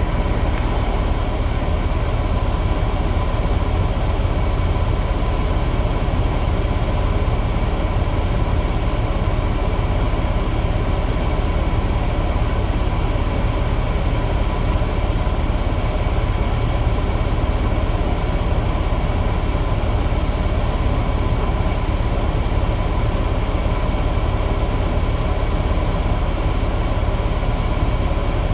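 Heavy diesel machinery engine running steadily, a constant low drone with a few steady tones on top and no distinct knocks or impacts.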